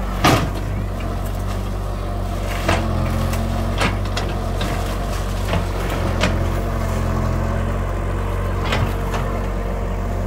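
Caterpillar mini excavator's diesel engine running steadily under hydraulic load as the bucket digs at a palm tree's roots, with several sharp knocks from the bucket and arm, the loudest just after the start.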